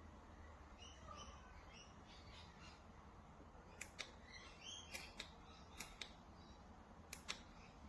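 Faint bird chirps over a quiet background, with a few sharp light clicks in the second half, several in quick pairs.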